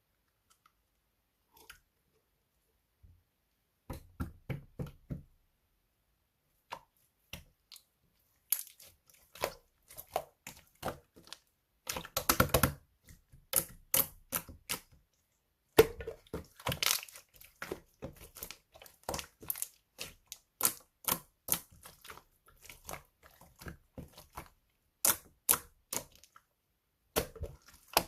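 Clear glitter slime being squeezed and stretched by hand, making sticky clicks, crackles and small air-bubble pops in irregular runs. Near silence for the first few seconds; the crackling is loudest in bursts about halfway through.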